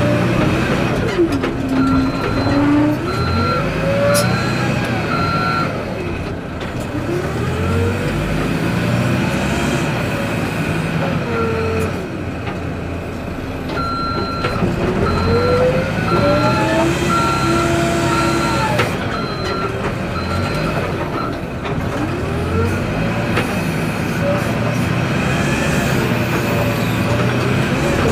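XCMG backhoe loader's diesel engine running under load, its pitch rising and falling as the machine works. The reversing alarm beeps in two long spells and again near the end.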